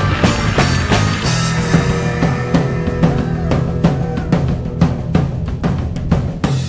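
Rock music with a driving drum-kit beat, bass drum and snare prominent, with busier drum hits in the second half.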